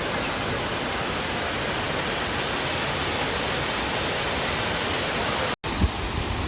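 Steady rush of a waterfall, an even hiss of falling water. It cuts out for an instant about five and a half seconds in, then comes back with some uneven low rumble.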